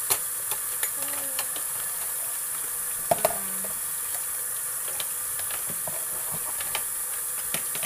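Kitchen faucet running steadily into the sink, with light clicks and clinks of dishes being handled under the water.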